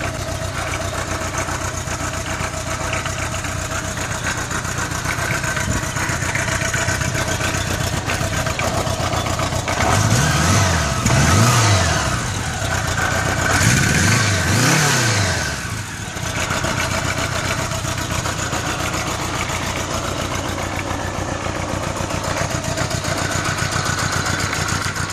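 1975 Honda GL1000 Gold Wing's liquid-cooled 999 cc flat-four engine idling steadily, then revved in two quick pairs of throttle blips, the pitch rising and falling each time, about ten and fourteen seconds in, before dropping back to idle.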